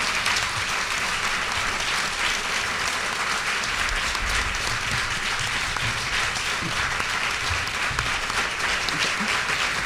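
Audience applauding: many hands clapping at once, steady and sustained.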